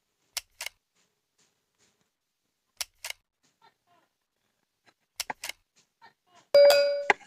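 Handling of a wooden hive box: sharp clicks and taps in pairs every couple of seconds, then a brief loud squeak ending in a click near the end.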